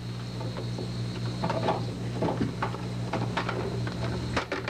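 Scattered light clicks, taps and clatter of small parts and a panel being handled, over a steady low hum.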